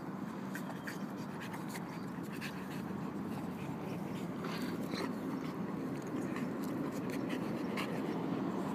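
Two Boxer dogs play-wrestling on grass: a steady scuffling rustle of bodies and paws, with scattered small clicks.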